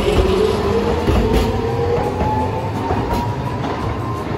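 Hiroshima Electric Railway 'Green Liner' articulated tram running past close by. Its traction motors whine in two tones that rise steadily in pitch as it accelerates, over the rumble of its wheels on the rails and a few sharp clacks.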